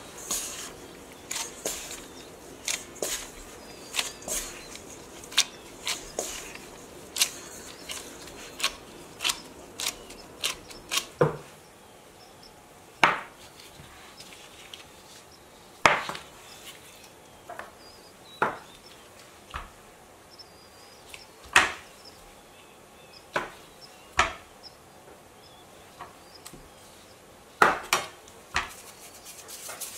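Cake-doughnut dough being worked in a stainless steel bowl, with quick small knocks and scrapes about twice a second. About eleven seconds in this gives way to a metal bench scraper cutting the dough into portions, each cut ending in a sharp knock on the work surface every couple of seconds.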